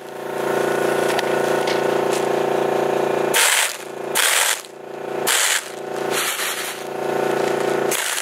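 Electric air compressor running with a steady hum, while the air blow gun on a homemade bottle-and-hose airsoft launcher lets out four short blasts of air, about three and a half, four and a half and five and a half seconds in and again at the end. No pellets come out of the launcher.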